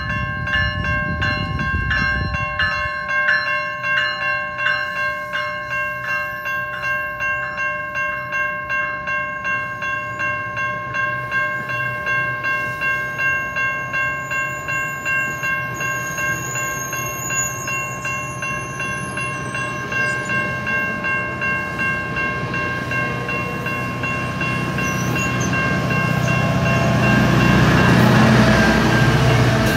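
Level-crossing warning bell ringing steadily as a GO Transit bilevel commuter train rolls past, with a steady rumble of wheels on rail. Near the end the diesel locomotive pushing at the rear passes close and its engine rises to the loudest point.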